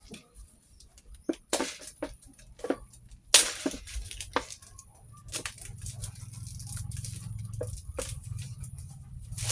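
Plastic instant-noodle packet crinkling in the hands as it is handled, an irregular run of sharp crackles and small taps. A low steady hum comes in about halfway.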